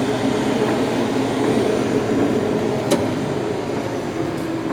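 Oliver drill grinder running with a steady mechanical hum, with one sharp click about three seconds in.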